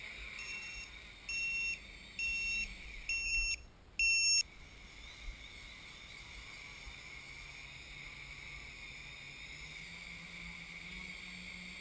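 Electronic beeper on a hobby quadcopter: short, high-pitched beeps, then four longer, louder beeps about a second apart in the first few seconds. After that only the faint, steady hum of the quadcopter's spinning motors and propellers is left, rising slightly in pitch near the end.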